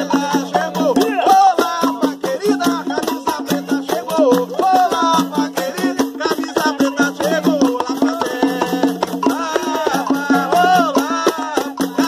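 A conga drum played by hand in a fast, steady rhythm, with a shaker rattling along and voices singing over it.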